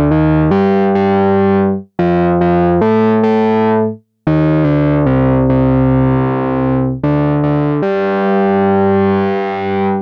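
Newfangled Audio Pendulate software synthesizer, a Buchla-style mono synth with a double-pendulum chaos oscillator, playing a lead preset. It plays a slow single-note line of sustained, harmonic-rich notes, with short breaks about two and four seconds in.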